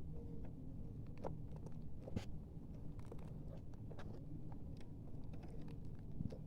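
Slime being squeezed and poked by hand: faint, irregular, sticky clicks and crackles over a low steady hum.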